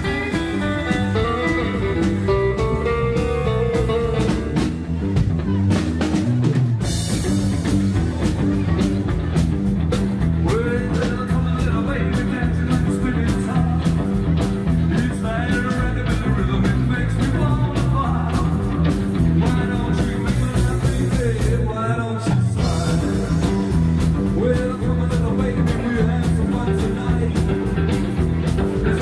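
Live rock and roll band playing an instrumental passage: electric guitar lead over bass and a steady drum beat.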